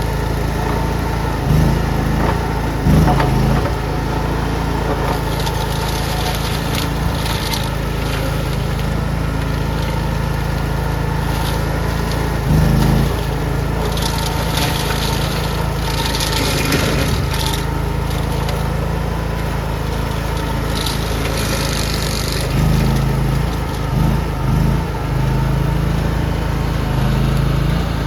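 Engine of a compact LX460 skid steer running steadily, with a few brief louder swells and scattered scraping and crunching noises.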